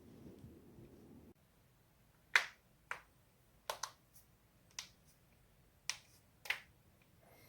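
Joints cracking: a series of about seven sharp pops at uneven intervals, the first and loudest a little over two seconds in. Before them a low background noise cuts off abruptly.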